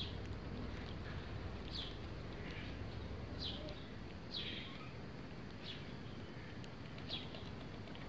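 House sparrows chirping: about seven short, falling chirps scattered unevenly, the loudest about four and a half seconds in, over a steady low background hum.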